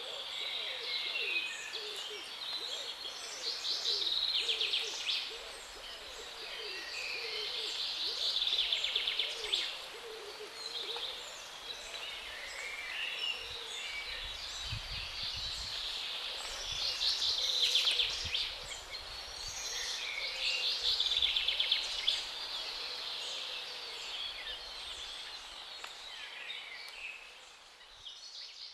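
Birds singing in a leafy park: several song phrases repeating every few seconds, with a lower, deeper call in the first half and a faint low rumble midway. The sound fades out at the end.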